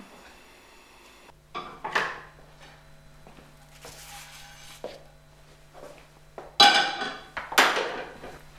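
A frying pan and plates clattering while crêpes are cooked: a few light clinks, then two loud metallic clanks about a second apart near the end.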